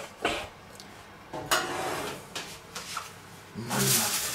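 Oven baking tray pulled out on its metal telescopic rails: a few knocks and a sliding scrape, loudest near the end.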